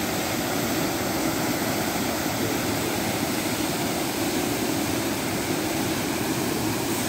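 Water jetting from a burst drinking-water main, a tall column of muddy water gushing up and splashing down into the trench, making a steady rushing noise.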